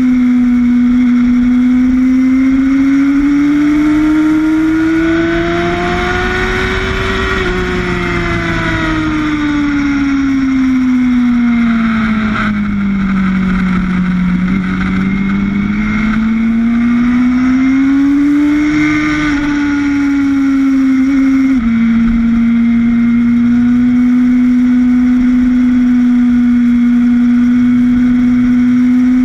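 Sportbike engine heard from a camera mounted on the motorcycle at racing speed. The engine note rises, falls to its lowest about halfway through, rises again, then drops slightly and suddenly and holds steady, over a constant rush of noise.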